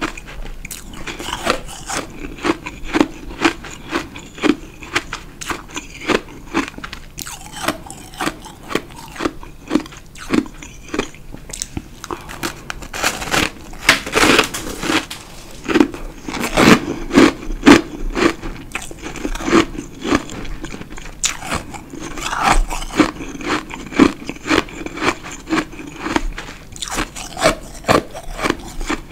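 A person biting and chewing chunks of compacted powdery ice close to the microphone: many quick, sharp crunches in an uneven run, one after another.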